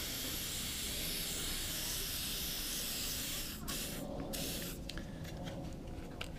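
Aerosol spray can hissing as it is sprayed onto a lawnmower carburettor to wash off dirt: one steady spray for about three and a half seconds, then a few short bursts.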